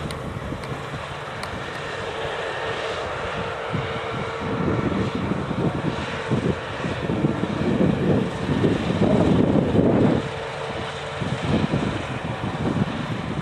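Claas combine harvester working the field: a steady engine hum with one held tone, while gusts of wind buffet the microphone, heaviest from about four seconds in to about ten seconds in.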